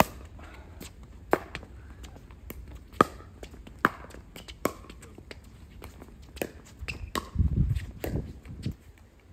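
Pickleball rally: a series of sharp pops as paddles strike the plastic ball, beginning with the serve, with fainter footsteps and scuffs on the hard court between hits. A low rumble comes in near the end.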